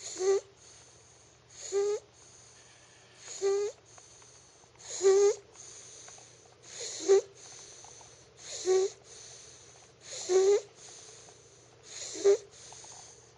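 Steady rhythmic snoring: eight snores, about one every second and three-quarters, each building to a short buzzing peak.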